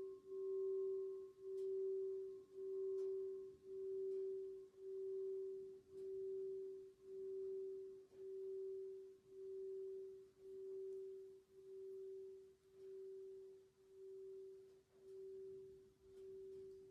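Long ringing tone of a Gorin hensho temple bell dying away, its hum swelling and dipping about once a second as it slowly fades. Faint crackles of a wood fire lie beneath it.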